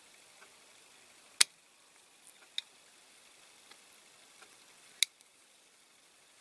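Sharp small clicks and taps of a diecast toy car's door and body parts being worked into place by hand. Two louder clicks come about a second and a half in and about five seconds in, with a few fainter ticks between.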